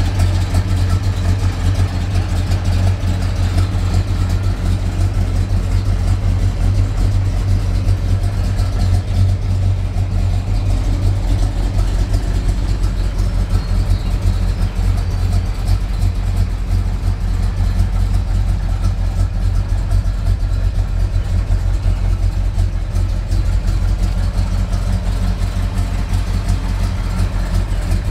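Dodge 440 cubic-inch big-block V8 of a 1969 Charger R/T idling steadily, a deep, even low rumble with no revs.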